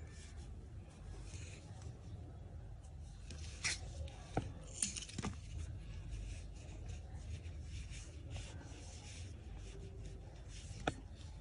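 Soft rubbing and rustling of cotton yarn and crochet work being handled and worked with a metal crochet hook, with a few small clicks around the middle and one near the end, over a low background hum.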